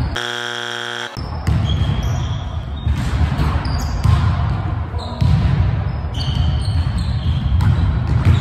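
Pickup basketball game on a hardwood gym floor: a basketball bouncing and players moving in a large echoing hall. Near the start a steady buzzing tone lasts about a second.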